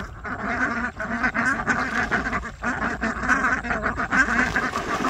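A flock of ducks quacking, many calls overlapping in a steady chatter.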